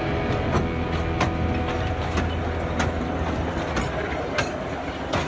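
Narrow-gauge railway passenger carriages rolling past close by: a steady low rumble with sharp wheel clicks over the rail joints at uneven intervals.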